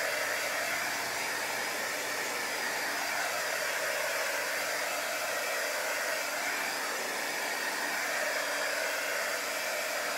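Small handheld dryer blowing steadily to dry wet chalk paste, an even rushing noise with a faint motor hum.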